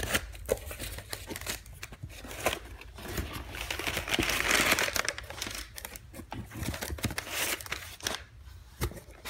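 Crumpled brown kraft packing paper crinkling and rustling as hands dig through it and pull it out of a cardboard box. The rustling is continuous and irregular and is loudest about halfway through.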